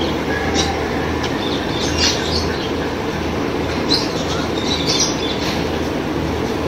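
Steady fan noise with a low hum from an evaporative air cooler, with short high bird calls breaking in several times.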